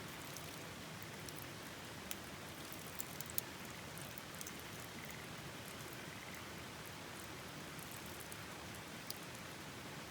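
Steady rush of rain and river water with scattered sharp ticks, the loudest a small cluster about three seconds in.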